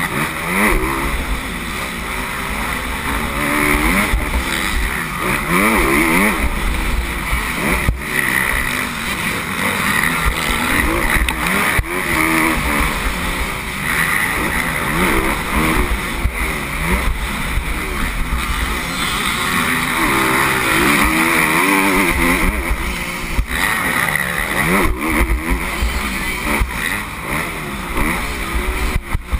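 Motocross bike engine revving hard, its pitch rising again and again as it accelerates along the track. It is heard on board over a constant low rumble of wind on the microphone.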